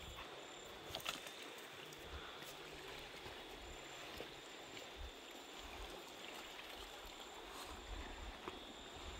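Faint, steady rush of a wide river flowing past a pebble bank, with a steady high insect drone above it. A few soft crunches of footsteps on the stones.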